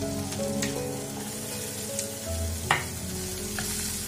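Chopped onion and capsicum sizzling in ghee in a nonstick frying pan, stirred with a silicone spatula, with a few sharp taps of the spatula on the pan, the loudest about two and a half seconds in. Soft background music plays underneath.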